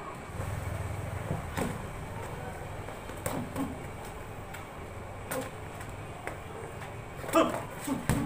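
Boxing sparring: scattered sharp smacks of gloved punches, with a short grunt near the end. A low rumble runs under the first few seconds.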